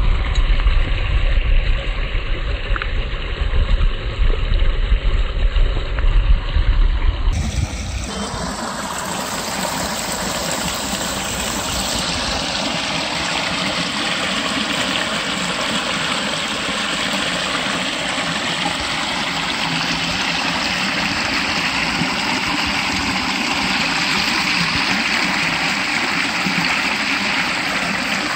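Water spilling over a small stone weir into a pool, a steady splashing rush. For about the first seven seconds a loud, uneven low rumble lies over it, then breaks off abruptly and the rush of water is left clear.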